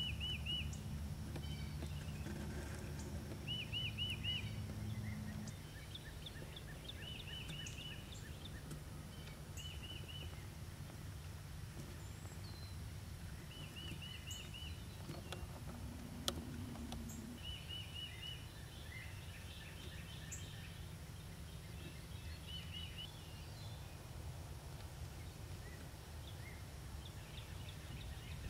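A songbird repeating a short phrase of four or five quick high notes every few seconds, with other scattered bird chirps, over a steady low rumble that is heavier in the first few seconds. One sharp click about halfway through.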